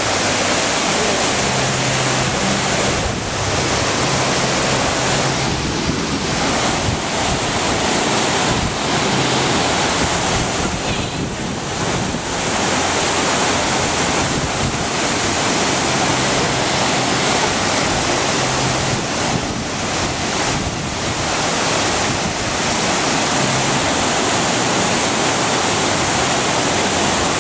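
Water of a tiered cascade fountain pouring over its stepped basins in broad sheets, with jets splashing back down: a loud, steady rush and hiss.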